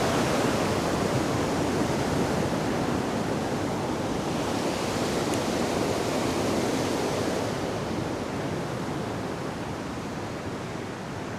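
Fast mountain stream rushing down its rocky bed, a steady dense rush of water that slowly grows fainter, its high hiss falling away about two-thirds of the way through.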